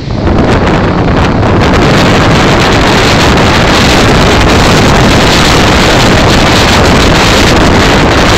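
Hurricane-force wind buffeting the phone's microphone: a loud, steady roar of wind noise that builds within the first second and then holds.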